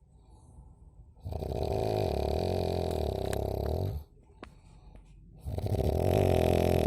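A person snoring: two long snores of about two and a half seconds each, with a quiet pause of about a second and a half between them.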